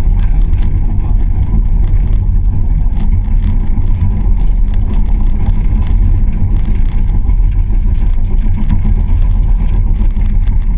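Kobelco SK140 excavator's diesel engine running steadily, a loud low drone with no change in pitch.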